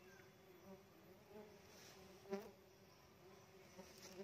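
Faint steady buzzing of Tetragonula laeviceps stingless bees flying around their opened hive box, with one bee passing close and briefly louder a little over two seconds in.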